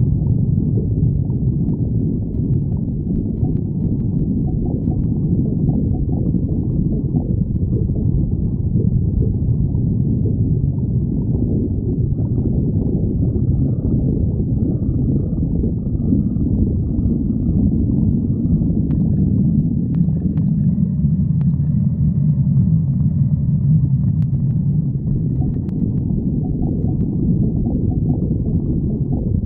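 Stomach growling: a low rumble that runs on without a break.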